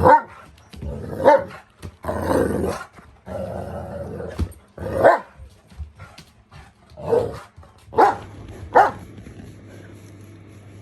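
Dogs at rough play: a string of short barks and growls with scuffling noise between them, dying down near the end.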